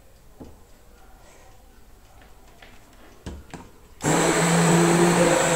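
Hand-held immersion blender switched on about four seconds in and running steadily for about a second and a half, at normal speed rather than turbo, blending a leafy milk mixture in a tall cup. Before it starts there are only a couple of light knocks.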